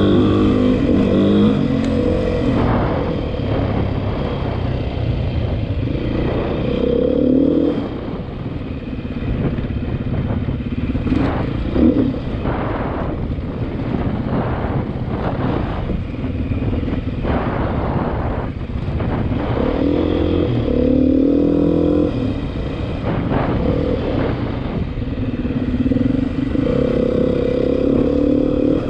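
Beta 500 RR-S single-cylinder four-stroke dirt bike engine under way, its pitch rising and falling as the throttle opens and closes through the gears. A sharp knock comes about twelve seconds in.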